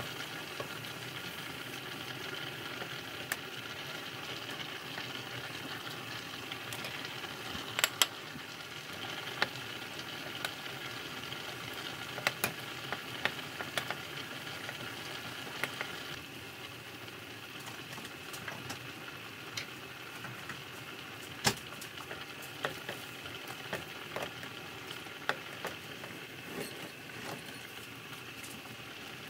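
Mushroom cream sauce simmering in a stainless steel frying pan with a steady hiss, stirred with a wooden spoon that clicks and knocks against the pan now and then.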